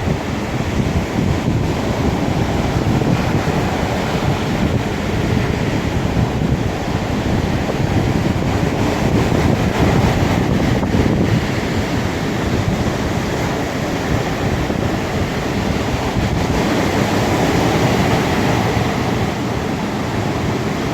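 Sea waves breaking and washing in a continuous surf that swells and eases gently, with wind buffeting the microphone.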